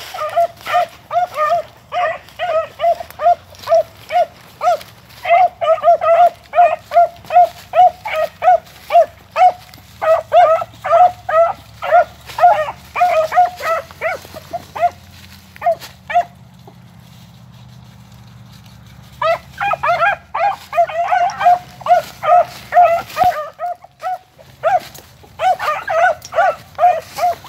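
Beagles giving voice on a rabbit trail: a fast, steady run of short, high yelps, about two or three a second. They break off for about three seconds past the middle and then pick up again.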